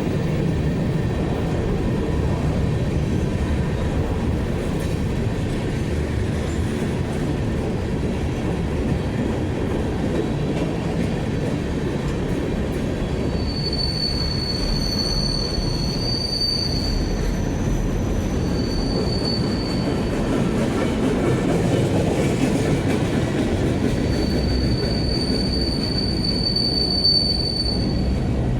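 Freight cars of a BNSF manifest train rolling past with a steady low rumble. From about halfway in, wheels squeal in a high tone three times, the last and longest near the end.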